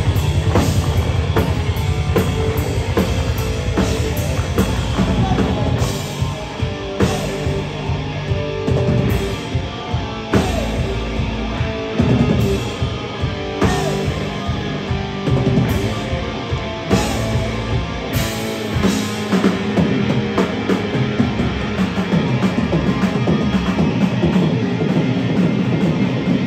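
A four-piece rock band playing live, with a drum kit and electric guitar.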